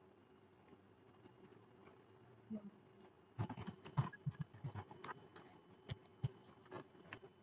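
Faint computer keyboard typing: a quick run of keystrokes about three and a half seconds in, followed by a few single clicks.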